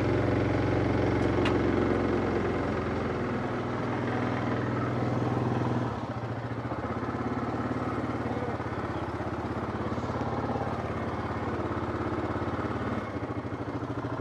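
Yamaha Kodiak ATV's single-cylinder four-stroke engine running at low throttle as it creeps up a loading ramp into a pickup bed, easing off about six seconds in.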